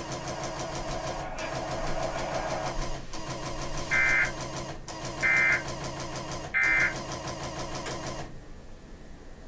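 Emergency Alert System end-of-message data signal: three short, identical two-tone digital bursts about a second and a half apart, marking the close of the alert. Under them is a steady background hiss and hum that drops away near the end.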